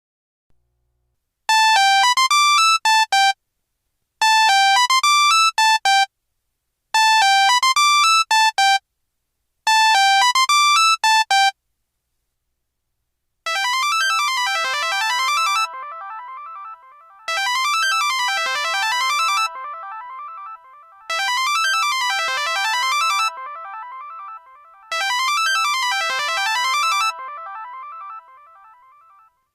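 Two Pantech Breakout phone ringtones played one after the other. First a short, bright melody loops four times with brief gaps; after a pause, a different, fuller melody loops four times, roughly every four seconds, each phrase fading out before the next.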